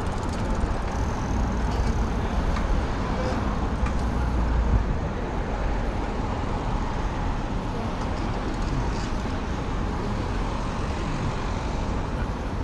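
Steady city road-traffic noise from a busy multi-lane street, heard from a bicycle moving along the pavement beside it, with a strong low rumble throughout.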